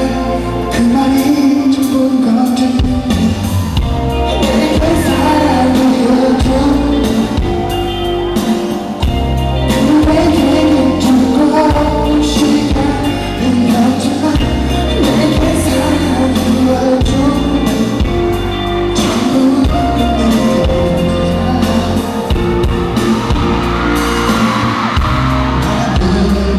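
A male pop singer singing live into a microphone over loud backing music with a heavy bass line and a steady drum beat.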